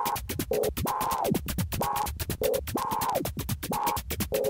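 Electronic background music with a fast, even beat and synth notes that slide down in pitch, repeating about once a second.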